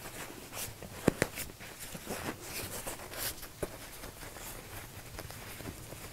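Cotton fabric rustling and being handled as ribbons are drawn up and tied at a corner of a stuffed fabric dog bed, with a few light taps, the sharpest about a second in.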